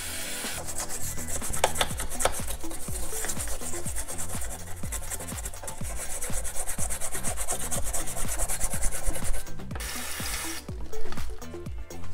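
Rapid rubbing strokes as the water pump housing of a Minarelli AM6 engine is scrubbed clean for the new pump, stopping about ten and a half seconds in. Background music with a steady beat underneath.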